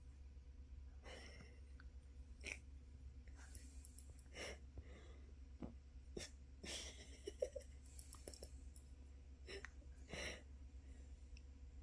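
Near-quiet room with a steady low hum, broken by scattered faint rustles and clicks and a few soft breath-like sounds.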